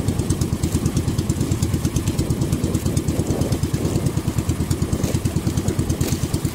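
Small boat's engine running steadily with a fast, even putter.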